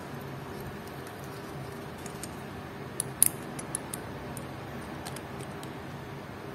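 Small metallic clicks as the steel tips of a caseback wrench are set against a stainless steel watch caseback: a sharp click about three seconds in, followed by a few lighter ticks, over a low steady hum.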